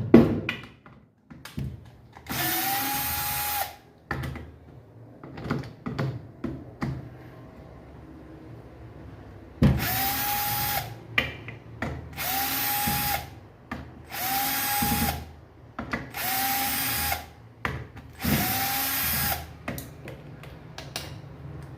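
Electric drill-driver running in six short bursts of about a second each, backing out the screws to open a washing machine's gearbox housing. Each burst spins up and winds down, with small clicks and knocks of handling between.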